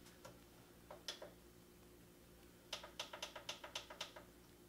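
Faint clicks of the buttons on a PowerXL air fryer's control panel being pressed to set it to preheat at 400 degrees: a couple of single presses, then a quick run of about ten presses in a row.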